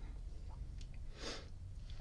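Quiet pause: a steady low hum with one short, soft hiss a little over a second in.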